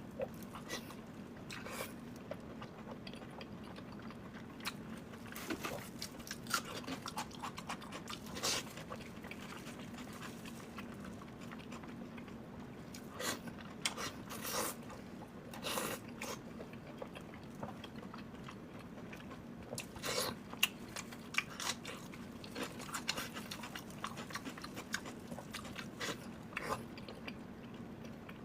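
Close-miked chewing and biting of sweet and spicy pork belly with green vegetables: irregular wet mouth clicks and crunches, with a faint steady hum underneath.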